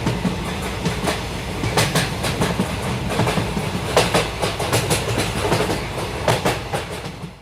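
A train passing: a steady low rumble with irregular sharp clacks of the wheels over the rail joints, fading away near the end.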